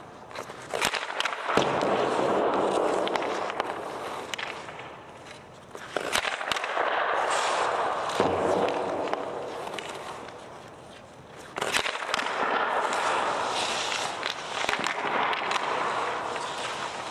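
Ice hockey shots on goal: three sharp cracks of stick on puck, about a second, six seconds and eleven and a half seconds in, each followed by several seconds of skate blades scraping across the ice.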